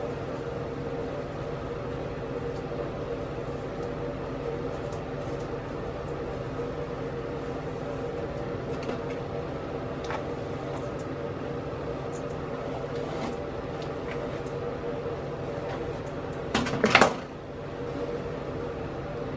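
Steady hum of a ventilation fan, with several fixed tones. Near the end comes a brief, much louder noise in two quick parts.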